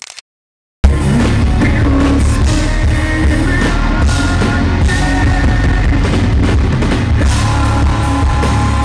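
A live rock band playing loudly through a venue PA, heard from the audience. The sound cuts out completely for about half a second just after the start, then the music resumes.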